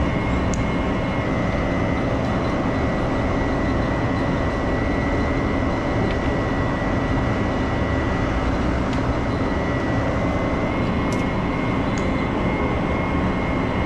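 Shrimp-farm canal water pumps running: a steady, loud mechanical drone with a thin high whine.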